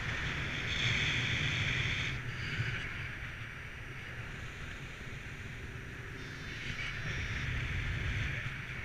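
Wind rushing over an action camera's microphone in paraglider flight: a steady low buffeting with a hiss that swells about a second in and again near the end.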